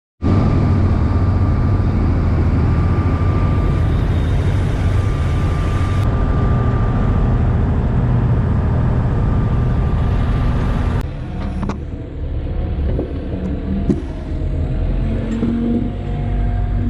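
Diesel engine of a small backhoe excavator running steadily, with a thin steady whine over it. About 11 seconds in, the sound drops to a quieter run with a few clicks and knocks.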